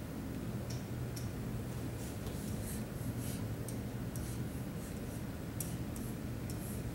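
Pen tip tapping and scraping against an interactive whiteboard as lines are drawn, in short, irregular strokes over a steady low hum.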